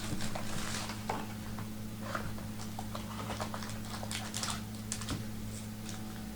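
Faint, scattered light clicks and rustles, irregular and close together, over a steady low electrical hum.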